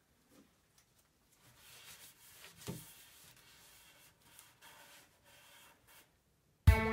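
Faint rubbing and handling noises, with one soft knock about two and a half seconds in. Guitar music starts abruptly just before the end.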